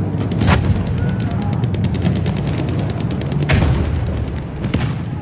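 Battlefield gunfire sound effect: rapid runs of shots with heavier single shots about half a second in and again about three and a half seconds in, over a continuous low rumble.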